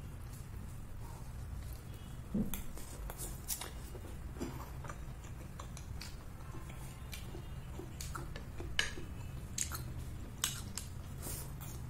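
Close mouth sounds of eating soft, syrupy rasmalai from a spoon: wet chewing with scattered sharp lip smacks, over a steady low hum.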